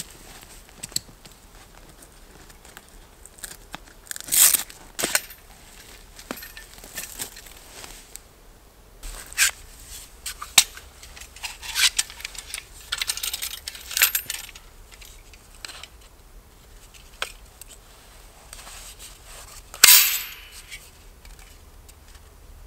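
Handling noises of outdoor gear: scattered rustles, clicks and light knocks, with louder brief rustling scrapes about four seconds in and near the end.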